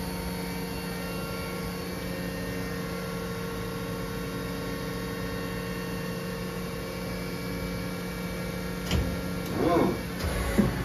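Steady electrical machine hum with several fixed tones from the powered-up DMG Mori Seiki NL2500/700 CNC turning center. About nine seconds in there are a couple of short knocks and a brief wavering squeak.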